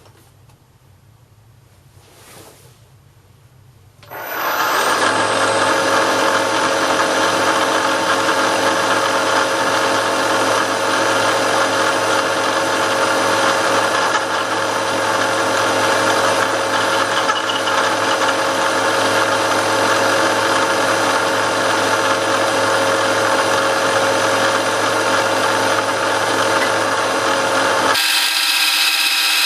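Milling machine starting up about four seconds in and then running steadily, its cutter machining the side of a metal vise jaw square. Near the end the sound changes abruptly to a thinner steady machine sound.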